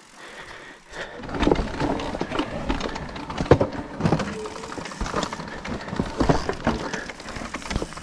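Mountain e-bike riding over rough, rocky ground: the bike rattles and knocks irregularly over the bumps, starting about a second in.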